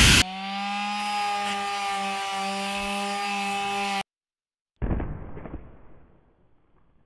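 A handheld power tool's electric motor running steadily with an even whine, cutting off about four seconds in. After a short silence comes a sudden thud with a rustle that fades over a second or so, as a spool of polypropylene rope is set down on paving stones.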